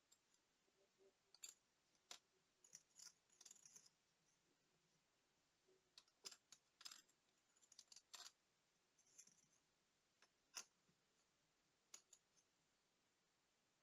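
Faint, irregular small clicks and taps, some in quick little clusters, from tools handling tiny parts of a digital watch during disassembly.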